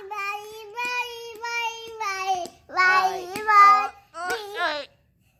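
A child's voice singing: one long held note for about two and a half seconds, then two shorter sung phrases, breaking off shortly before the end.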